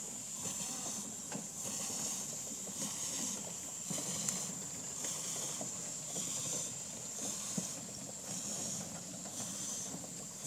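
Marschutz & Cantrell Gypsy steam locomotive moving along the track, its steam hissing in a steady pulsing rhythm, with a couple of sharp knocks.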